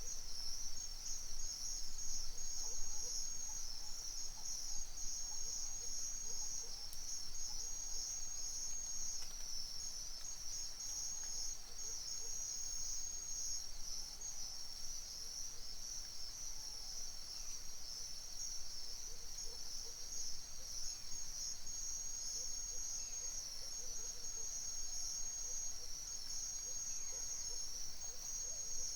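Dense chorus of crickets and other insects: a steady, high, pulsing trill, with faint scattered bird calls lower beneath it.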